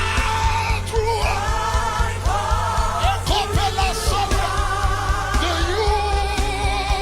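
Live gospel worship music: a singer holds long, wavering notes over a steady bass line and drum hits.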